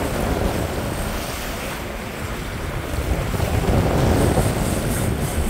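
Wind buffeting the microphone over the low rumble of a game-fishing boat's engines, with water churning and rushing at the stern. The churning grows louder a little past halfway through.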